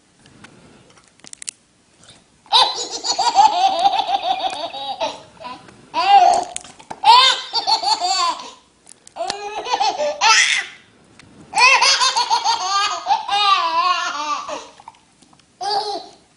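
A baby laughing in about six high-pitched fits, each a second or more long, with short pauses between them.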